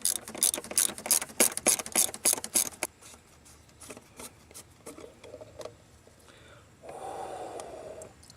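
A socket and ratchet clicking and clattering in a quick irregular run for about three seconds, then a few lighter ticks, with a short scraping rub near the end, as the Ecotec 2.2's oil filter housing cap is worked loose with its special socket.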